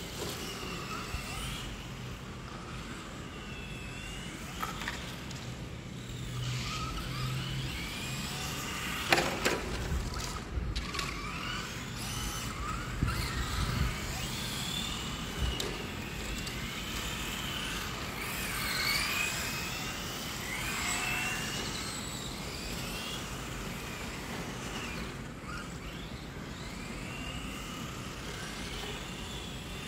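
Tamiya TT-02 1/10-scale electric RC touring cars racing, their electric motors whining up and down in pitch as they speed up and slow down. A sharp knock comes about nine seconds in, with a few smaller knocks around thirteen seconds.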